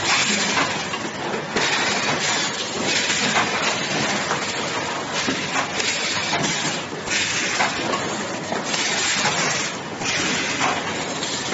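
Steady mechanical din of a box-packing workshop: machines running with a constant noise, the level dipping briefly now and then.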